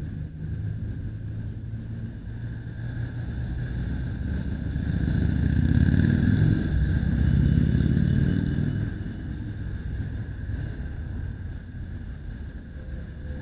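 Passing city traffic: a low engine and tyre rumble that swells to its loudest in the middle as a van and a motorcycle cross close by, then eases.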